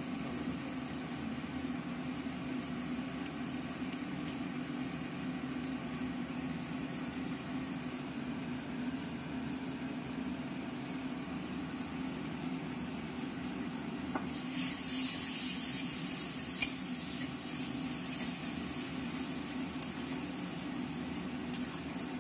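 Food frying in oil in a pan, a steady sizzle over a low hum. About fourteen seconds in the sizzle flares up loudly for a few seconds, with a sharp clink of a utensil against the pan in the middle of it.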